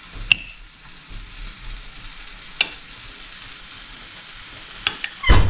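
Onions frying in a pan with a steady low sizzle, while a kitchen knife cuts boiled eggs on a ceramic plate, the blade clicking sharply against the plate three times. A heavier thump comes near the end.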